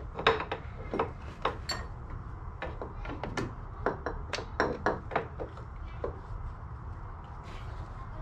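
Irregular clicks and knocks of metal parts being handled and worked into place in a snowmobile's drive area, thinning out after about five seconds.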